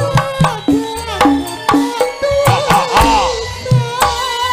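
Live Javanese gamelan music: quick hand-drum strokes over ringing pitched metal notes, with a female sinden singing into a microphone with a wavering vibrato.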